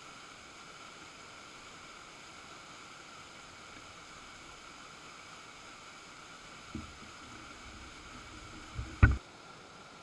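Waterfall rushing, heard as a steady even hiss. About seven seconds in comes a low thump with some low rumbling, and near the end a much louder low thump.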